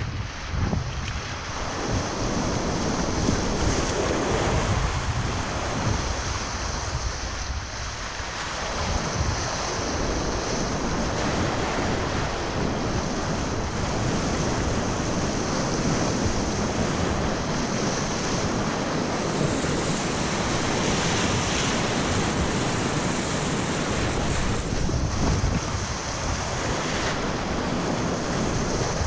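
River rapids rushing and churning around a whitewater kayak, a steady wash of water noise that swells and eases, with wind buffeting the camera microphone.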